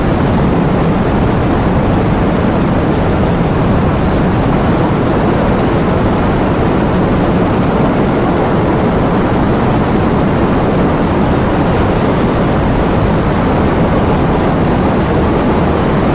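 Heavy rain falling steadily, a dense, even rushing noise that stays weighted toward the low end without pauses or single drops standing out.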